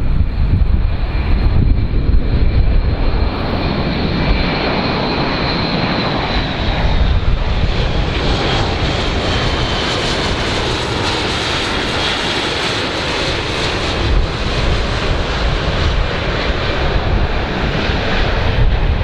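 Airbus A400M Atlas's four turboprop engines running as the aircraft flies low on approach: a steady rush with a high whine that slides down slightly in pitch some seconds in.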